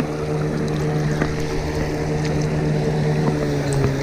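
A boat's outboard motor runs at a steady pitch over the rush of river water, and its pitch begins to drop near the end.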